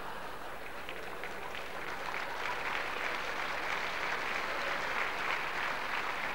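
Large audience applauding, the clapping building up after about a second and running thick and steady through the rest.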